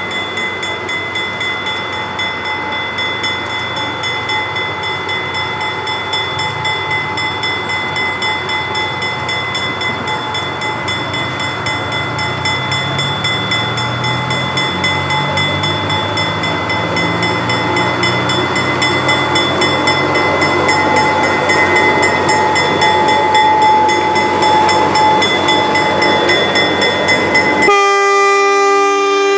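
East Broad Top M-7 railcar approaching: its running noise pulses and grows steadily louder. Near the end its horn starts sounding a steady chord of several tones.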